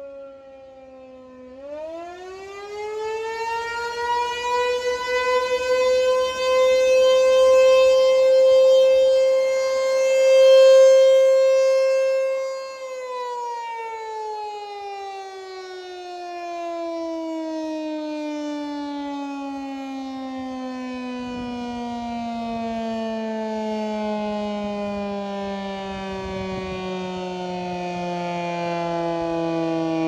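ASC T-128 rotating outdoor warning siren: its pitch is falling at first, then about a second and a half in it winds back up to a high steady tone that holds for about ten seconds, and then it winds down slowly, the pitch sliding far down. Its loudness swells and fades as the horn turns.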